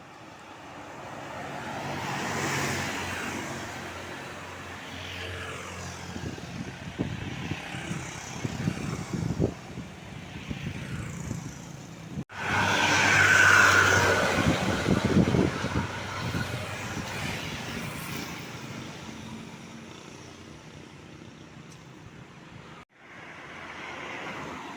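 Roadside traffic: vehicles driving past one after another, engine and tyre noise swelling and fading, loudest a little past the middle. The sound breaks off abruptly twice.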